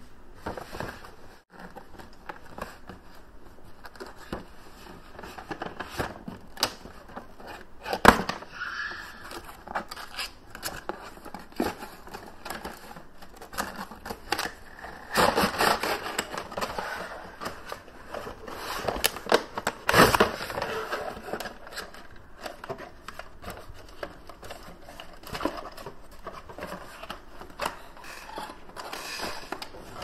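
Cardboard toy packaging being handled and opened: scraping, rustling and tearing of cardboard and plastic, with many small clicks and taps. A sharp knock stands out about eight seconds in and another about twenty seconds in.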